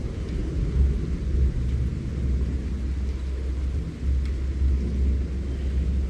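Forest ambience dominated by a low, continuous rumble, with a few faint high ticks.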